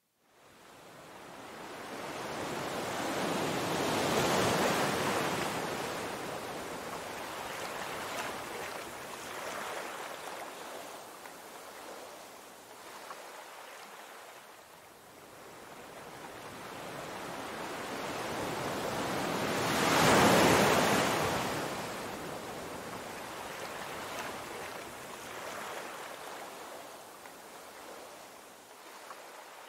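Ocean surf breaking over rocks, swelling and ebbing in waves, with one surge about four seconds in and the loudest crash about twenty seconds in.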